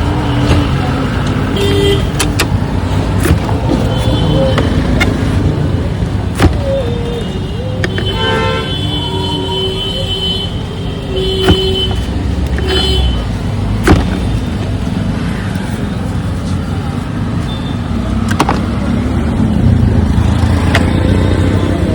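Busy road traffic: vehicle engines running steadily, with short horn toots now and then and a few sharp knocks.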